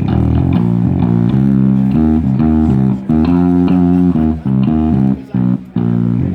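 Electric bass guitar played solo through the PA for a sound check, a run of low notes with brief stops a few times in the second half.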